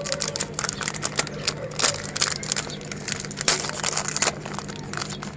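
Meat grinder crushing biscuits: dense, irregular crunching and crackling over a steady hum.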